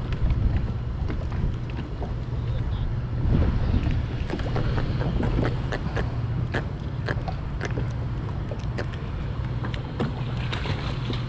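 Strong wind buffeting the microphone in a steady low rumble, with scattered sharp clicks and taps from about four seconds in.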